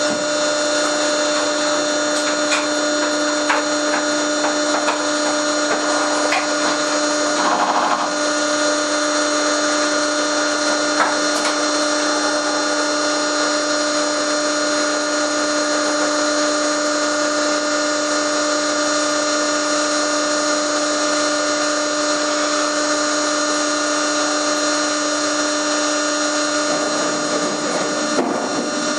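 Acculoader container loader's hydraulic power unit running with a steady, unchanging whine while loading scrap cable into a shipping container, with a few scattered knocks and a short clatter about eight seconds in.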